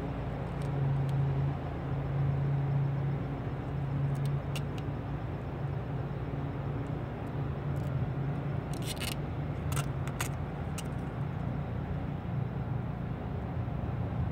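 A steady low hum of a running vehicle engine, with a few short sharp clicks and crackles about four seconds in and again around nine to ten seconds in as the vinyl wheel skin is pressed onto the wheel.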